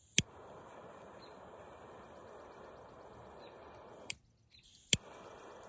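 Butane torch lighter clicked on and hissing steadily at a firework fuse, cut off with a click about four seconds in, then clicked on again a second later and hissing once more.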